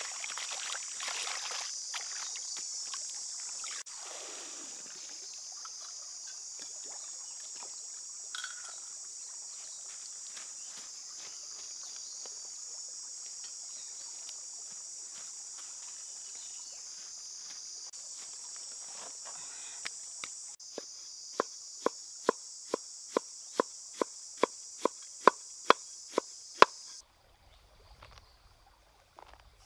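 Steady high-pitched insect chorus, with water splashing over produce in a basket at the start. Later comes a run of sharp knife chops on a bamboo tray, about two a second, which are the loudest sounds, before everything drops to a quiet background near the end.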